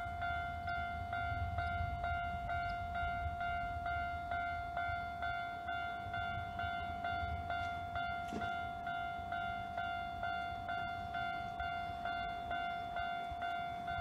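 Japanese railway level-crossing warning bell ringing, a steady electronic ding repeated about two and a half times a second, signalling that a train is approaching and the barriers are coming down.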